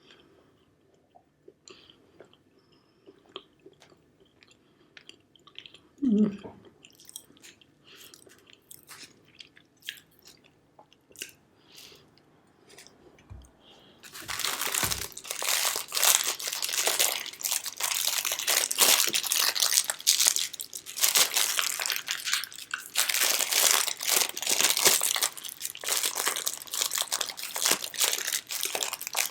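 Small soft clicks and mouth sounds, with a short low hum about six seconds in. About halfway through, loud, continuous crackling starts: a plastic wrapper being crinkled and torn open around a banana-flavoured marshmallow pie.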